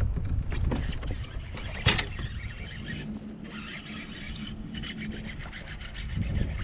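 Fishing reel being cranked to bring in a hooked bass, a steady whirring from about three seconds in, over wind buffeting the microphone. There is a sharp knock about two seconds in.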